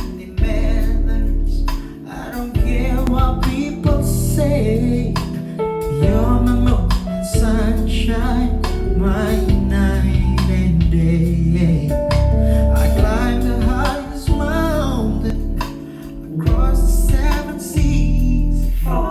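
A pop song played loud through a JBL PartyBox party speaker, with singing over guitar and drums and a heavy bass line. The music dips briefly a couple of times.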